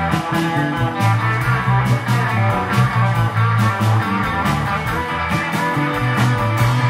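Live blues-rock band playing: electric guitars over bass guitar and a drum kit keeping a steady beat.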